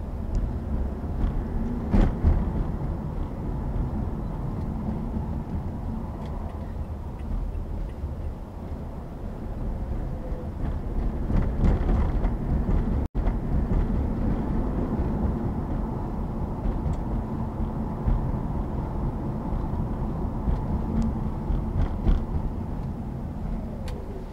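A car driving on a road: a steady rumble of tyres and engine, with a few sharp knocks along the way. The sound cuts out for an instant about halfway through.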